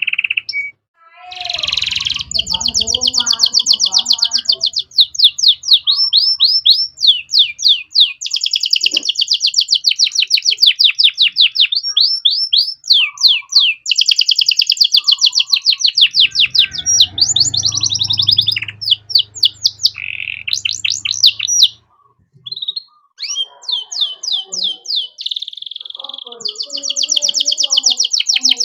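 Male domestic canary singing a long song of fast, high-pitched repeated trills, switching from one trill to the next. The song breaks off briefly about a second in and again around twenty-two seconds.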